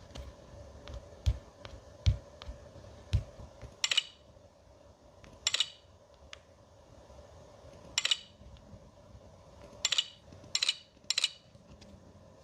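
Hard small objects handled on a table: three dull knocks in the first few seconds, then six short, sharp clicking bursts at irregular intervals, over a faint steady hum.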